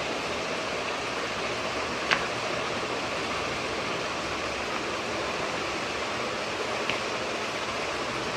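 Steady hiss of background noise, with one sharp click about two seconds in and a fainter click near the end.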